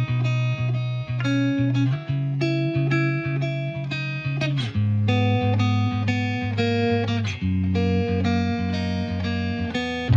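Background music: guitar playing a run of plucked notes over a bass line.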